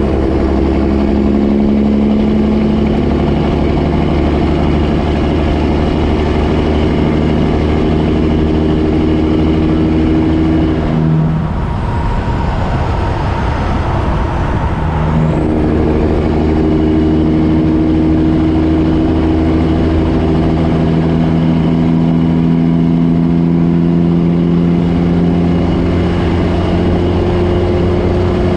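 Kenworth semi-truck's diesel engine pulling a loaded lowboy trailer, its pitch climbing slowly as the truck accelerates. About eleven seconds in, the engine note drops away for roughly four seconds, as it does during a gear change, then comes back and climbs again.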